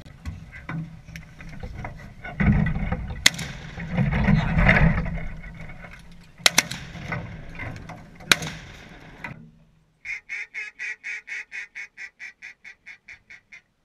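Ducks quacking over rough outdoor noise, broken by three sharp cracks. Then a descending run of about a dozen mallard-hen quacks, slowing and fading.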